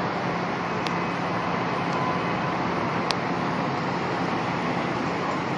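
Steady city street noise with the low, even hum of a parked fire truck's diesel engine idling, and two faint clicks about one second and three seconds in.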